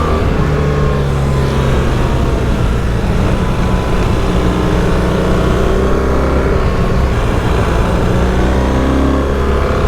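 BMW GS adventure motorcycle's engine running hard at track speed, its pitch rising and falling as the rider works the throttle, with rushing wind noise over it.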